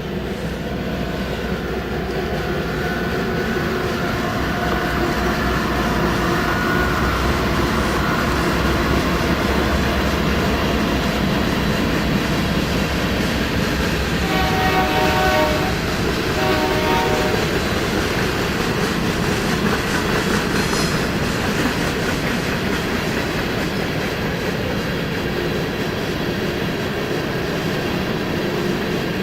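Union Pacific freight train running past with a steady rumble of wheels on rail. About halfway through, the locomotive's air horn sounds two blasts, the first longer than the second.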